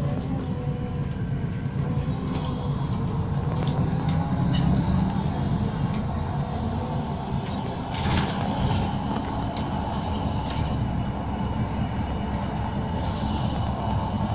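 Inside a moving city bus: a steady low drone of engine and road noise, with a wavering whine from the drivetrain and a few short rattles.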